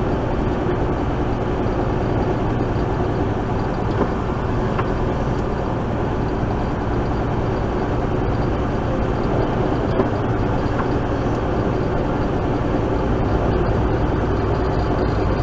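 Inside the cab of a Mack Anthem semi truck on the highway: its diesel engine and road noise make a steady drone.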